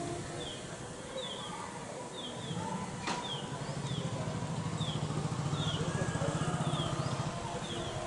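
A motor vehicle engine runs in the background, growing louder from about two seconds in and fading near the end, while a bird repeats a short high chirp one or two times a second throughout. A single sharp click about three seconds in.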